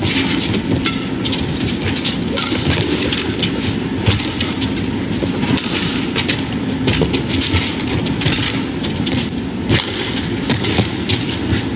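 Badminton rally: repeated sharp racket strikes on the shuttlecock, scattered irregularly, over the steady noise of an arena crowd.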